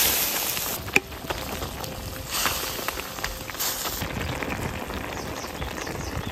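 Spicy broth bubbling and crackling at the boil in a wok, with noodle sheets and dried vegetables cooking in it. A single sharp knock about a second in, from a metal spatula against the wok.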